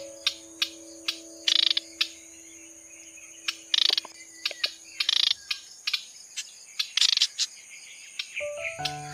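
Bunting calls: short, sharp call notes repeating irregularly, several a second, with a few longer bright bursts, over steady low tones that stop about five seconds in and return near the end.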